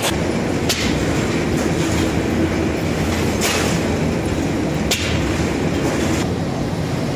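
Automatic lavash bread machine running: a steady mechanical rumble and clatter from its moving perforated belt, with a few sharp clicks.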